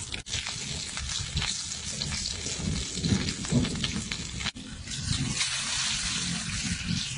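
Sea cucumber sizzling on a fire-heated stone, a steady hiss with scattered crackling pops, broken off briefly twice.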